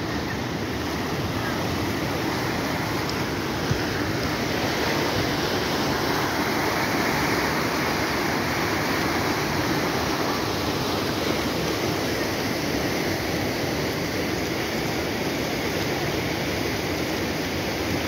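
Swollen, muddy floodwater rushing steadily down a concrete-walled stream channel after heavy rain, a constant churning water noise.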